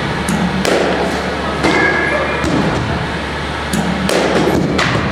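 Softball batting practice in a netted cage: several sharp knocks and thuds of bat on ball and balls hitting the netting, the strongest near the end, over the steady hum of a large hall.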